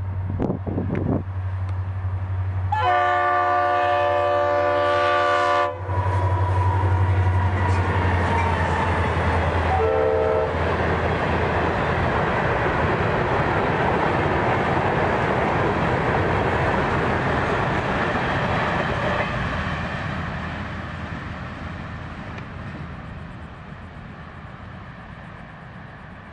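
Diesel freight locomotive passing with a long horn blast about three seconds in and a short toot near ten seconds, over a low engine drone. Loaded hopper cars of a rock train then roll by with steady wheel-on-rail noise that fades as the train moves off.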